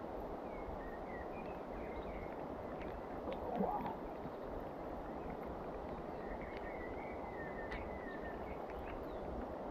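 Steady outdoor noise of rain and the river, with small birds chirping in two short spells and a few sharp ticks. About three and a half seconds in there is a brief splash as the landing net with the barbel is lifted out of the water.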